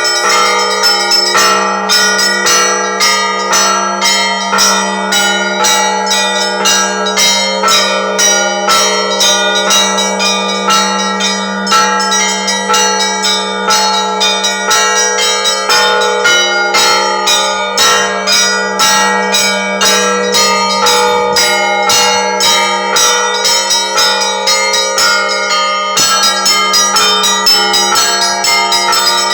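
Russian Orthodox church bells ringing: many bells struck in quick rhythmic patterns over the steady hum of a large bell. The smallest bells drop out briefly about two seconds in and again near the end.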